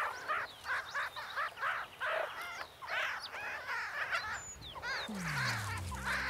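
Meerkats giving short chirping calls over and over, a few each second. About five seconds in, a low falling tone sets in and settles into a steady low hum.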